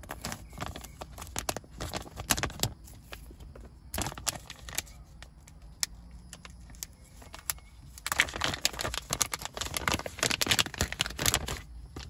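Dark metallised plastic packaging pouch crinkling and crackling as it is opened by hand and the cable inside is pulled out. The crackles come in uneven bursts and are densest in the last few seconds.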